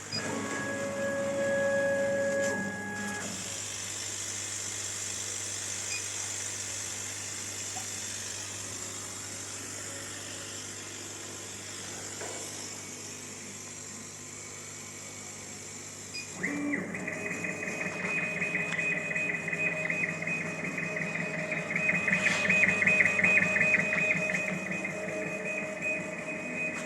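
CO2 laser cutter's gantry stepper motors whining as the laser head moves, over a steady hiss of air. About 16 seconds in, a louder whine with a fast fluttering rhythm starts as the head moves rapidly back and forth.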